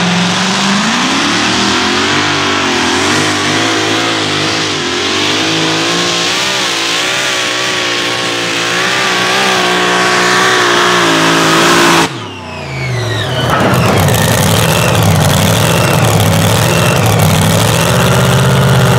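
Modified pulling tractor's engine running hard at high revs under load, its pitch wavering slightly. About twelve seconds in, the sound drops off abruptly with whines falling in pitch. Then heavy engine running picks up again.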